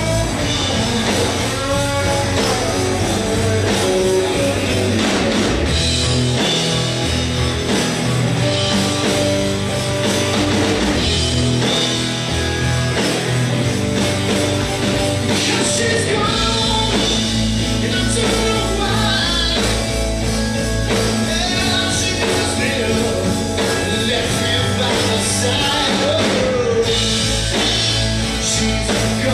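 A rock band playing live on electric guitars, bass guitar and drums. The lowest bass notes drop out briefly twice, about six and about twelve seconds in.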